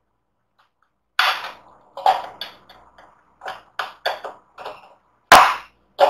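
Sharp knocks and metallic clanks from hands working on a desktop PC's sheet-metal case, an irregular run of about ten knocks starting about a second in, the loudest near the end.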